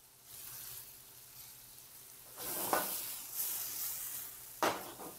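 Chopped vegetables (garlic, celery, olives, raisins) sizzling in a hot sauté pan over a gas burner. The sizzle grows louder for a couple of seconds in the middle as the pan is worked, and there is a single sharp knock near the end.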